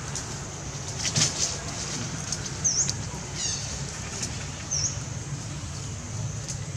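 Outdoor ambience: a steady high hiss and a low hum, with a few short clicks about a second in. Over them come two brief, high bird chirps and a quick falling bird call around the middle.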